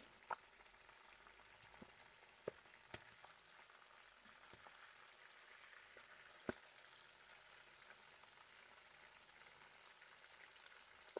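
Fish frying in hot oil in a pan: a faint, steady sizzle. Several sharp clicks of the spatulas against the pan as the fish is turned, the loudest about six and a half seconds in.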